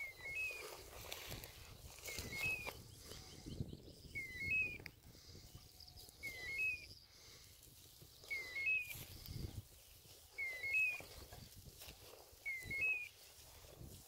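A short bird-like two-note chirp, a dipping note followed by a higher one, repeated at a very even pace about every two seconds, over faint rustling.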